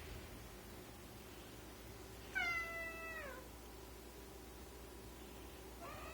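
A cat meowing: one drawn-out call about two seconds in that drops in pitch as it ends, then a shorter call near the end.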